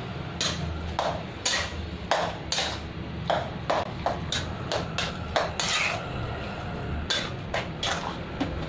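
A steel spoon beating malai (milk cream) in a stainless steel bowl, clinking and scraping against the bowl in uneven strokes about once or twice a second: the cream is being hand-churned with a little tap water to separate out the butter.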